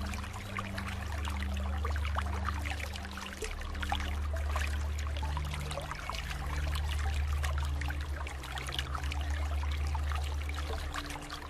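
Running water trickling and splashing steadily, over a low sustained hum whose pitch shifts a few times.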